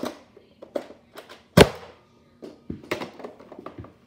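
Plastic clicks and knocks from a toy Nerf crossbow being handled, with one loud sharp snap about one and a half seconds in and a cluster of smaller clicks near the end.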